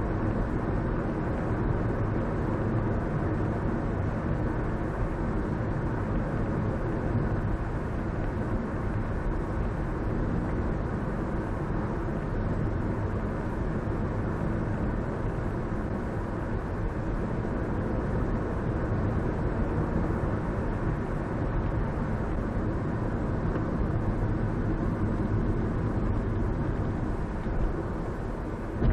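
Steady road and engine noise of a car driving at speed, heard from inside the cabin: an even, low rumble of tyres and engine.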